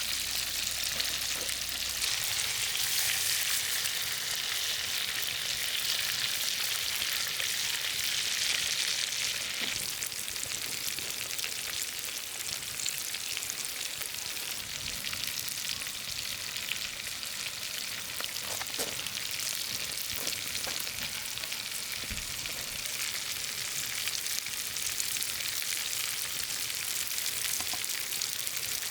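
Food frying and sizzling in hot fat, a steady crackling hiss with scattered small pops. It is loudest for the first several seconds, then settles slightly quieter.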